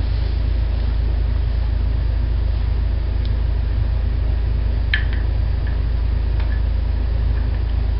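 Steady low hum with a few faint light clicks, the clearest about five seconds in, as a coaster brake hub's sprocket is screwed by hand into its clutch.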